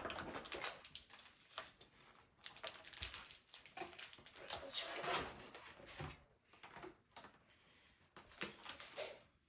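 Pokémon booster packs being handled and opened: foil wrappers crinkling and tearing in a series of short, faint crackles and rustles.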